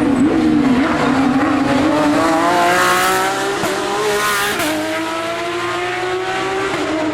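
Racing car engine at high revs during a hill-climb run, its pitch dipping and climbing as it changes gear, with quick shifts about three and a half and four and a half seconds in.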